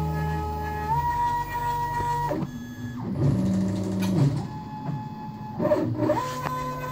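Stepper motors of a DIY CNC router driving its gantry and axes in a dry run, with the router spindle off. Steady whining tones jump in pitch and stop and start as the moves change, with a short pause about two and a half seconds in.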